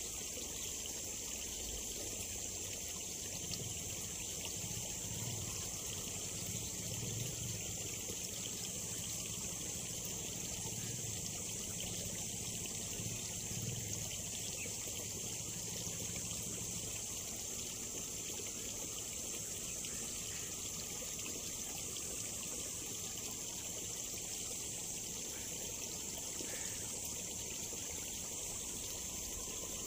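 Steady trickle of water flowing along a small ditch, an even hiss with no break.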